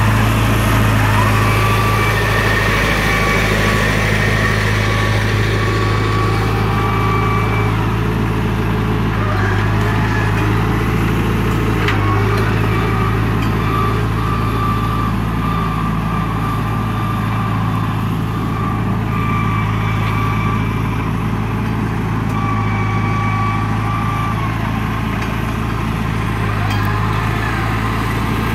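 John Deere tractor's diesel engine running steadily at low speed while it pulls a fertilizer spreader along the row. A higher whine comes and goes several times over it.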